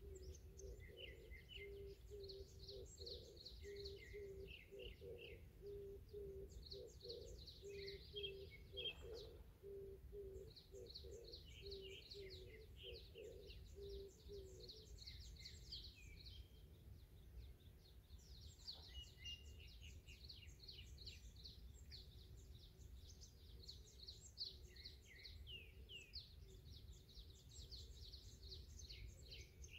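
Faint chirping and trilling of several small birds, on and off throughout. Under it, a low note repeats over and over for the first half, then fades, over a faint low rumble.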